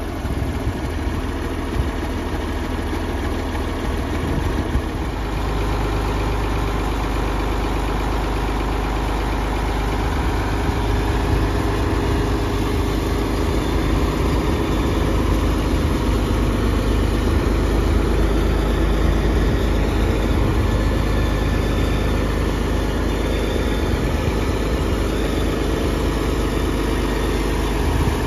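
Cockshutt 1955 tractor's engine idling steadily, a little louder from about five seconds in.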